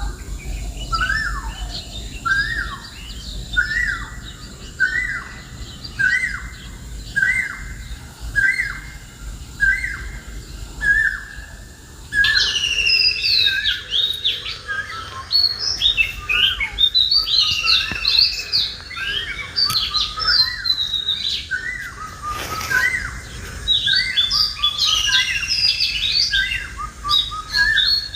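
Birds calling: a short whistled note repeats about once a second, then from about twelve seconds in a busier, higher-pitched mix of chirps and trills joins in and carries on.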